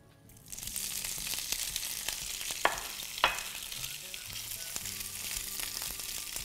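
Smoked tofu cubes hitting hot olive oil in a non-stick frying pan and sizzling, the hiss starting about half a second in as they go in and carrying on while they are stirred, with two sharp clicks near the middle.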